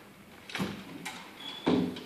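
Equipment being handled at the back of a fire engine: a few light knocks and rattles, a brief high beep just past the middle, and a louder knock near the end.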